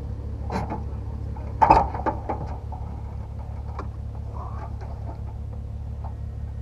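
Turbocharged Mazda MX-5's engine idling steadily at a standstill, with a scatter of sharp clicks and knocks over it, the loudest just under two seconds in.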